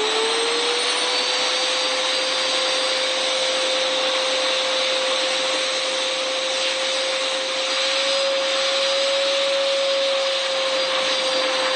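Vacuum cleaner running steadily: a rush of air with a steady motor whine.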